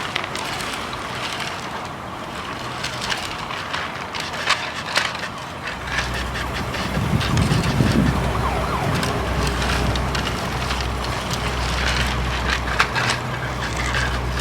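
Stones and gravel scraping and clattering as a toy construction vehicle pushes a load of them along. A low steady hum joins in about six seconds in.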